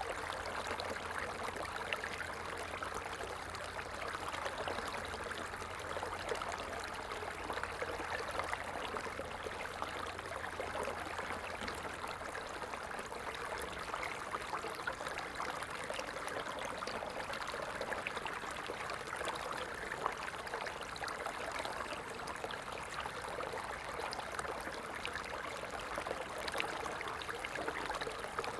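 Stream of water flowing in a steady, even rush with fine splashing crackle. A faint low hum underneath stops about twelve seconds in.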